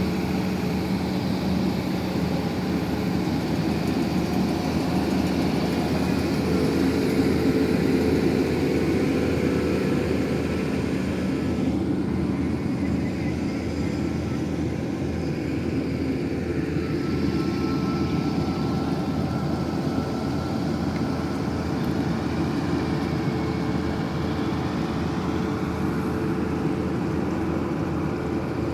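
Diesel engine of an XCMG 6800 horizontal directional drilling rig running steadily, its level swelling slightly about seven seconds in.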